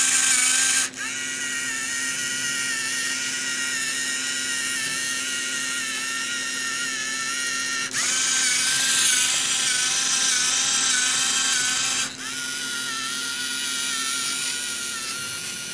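Lego Mindstorms NXT servo motors whining steadily as they drive the copier's mechanism. The whine changes pitch and loudness abruptly about a second in, again about eight seconds in, and once more about twelve seconds in.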